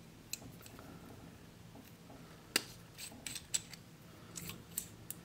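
Faint, scattered small metallic clicks and ticks from a stainless steel Parker Jotter ballpoint pen being handled and taken apart to get at its refill, the sharpest click about two and a half seconds in.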